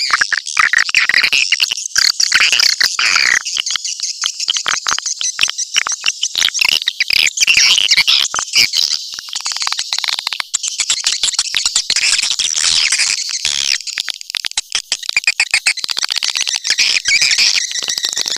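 Swiftlet caller sound: a dense, continuous chorus of chittering swiftlet calls with rapid clicks, the lure sound that is played to draw swiftlets into a swiftlet house.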